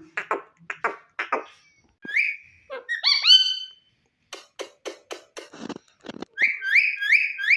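Indian ringneck parakeet (green ringneck) calling: rasping chatter, then whistled notes that rise and fall, a quick run of clicks, and three quick repeated calls near the end.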